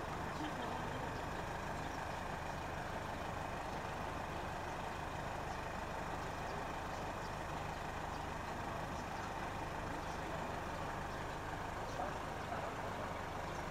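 A steady low mechanical drone under even outdoor background noise, without change.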